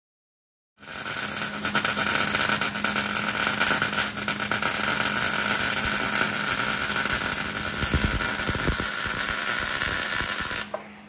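Wire-feed welder laying a bead on steel, a steady dense crackle and sizzle of the arc. It starts suddenly about a second in and stops abruptly near the end.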